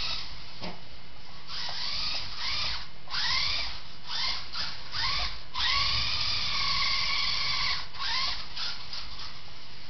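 Electric motor of a Max 18XXL RC car with a Carson tuning set whining in repeated short bursts, its pitch rising at the start of each throttle burst. About six seconds in comes one longer full run of about two seconds before the short bursts resume.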